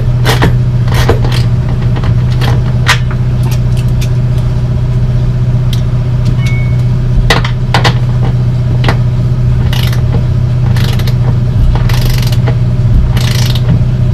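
An engine idling steadily, the loudest sound, with short clicks and metal taps from a ratchet wrench tightening bolts on the trailer's underside. A few longer scraping strokes come near the end.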